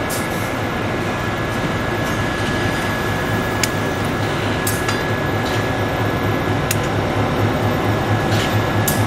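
An EMD SW9 switcher's diesel engine running with a steady low throb, getting louder as the locomotive rolls slowly closer. A few sharp clicks come through over it.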